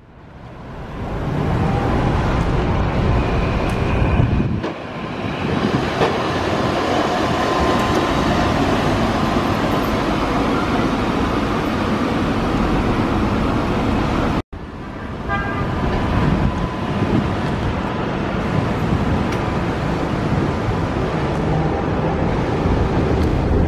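Street traffic with Kumamoto City streetcars running past on their tracks among cars: a steady mix of road and tram noise with a faint high whine at times. The sound cuts out for an instant about two-thirds of the way through.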